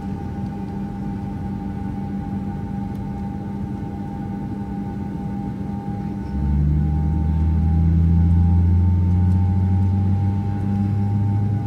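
Airliner cabin noise on approach: a steady engine and airflow drone with a constant hum. About six seconds in, a louder low rumble joins it for about five seconds, then drops away.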